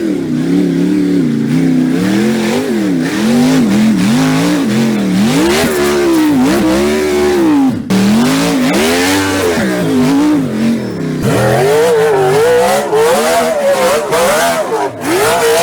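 Off-road 4x4 engines revving hard under load, the pitch swinging up and down every second or so. A short break about eight seconds in, after which a second revving engine takes over.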